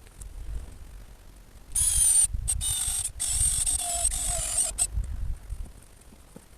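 Power drill-driver running in two bursts, a short one about two seconds in and a longer one of about a second and a half, driving fixings into the timber frame of a shed base.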